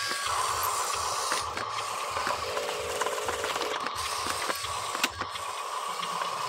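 Electric drive motor and gearbox of a radio-controlled dump truck running, a steady whine with a low uneven rumble as it drives over dirt.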